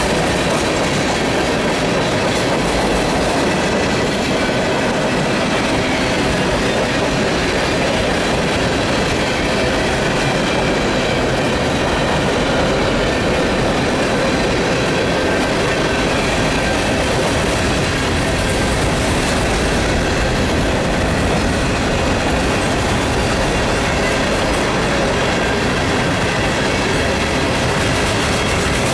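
Freight train cars, tank cars and then open-top hoppers, rolling steadily past: a continuous loud rumble and clatter of steel wheels on the rails, with a faint thin wheel squeal mixed in.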